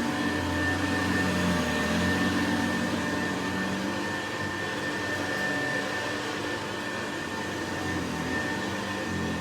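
Vintage Hoover 707 vacuum cleaner running steadily: a motor hum that wavers slightly in pitch, under a constant high whine.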